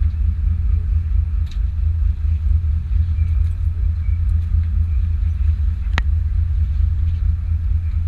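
Steady low rumble of a charter fishing boat's engine running, with a couple of sharp clicks, the clearer one about six seconds in.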